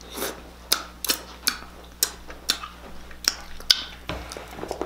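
Close-up mukbang eating sounds of king crab meat being chewed, heard as a run of sharp, irregular wet smacking clicks, about two or three a second. A soft low thump comes about four seconds in as crab legs are handled.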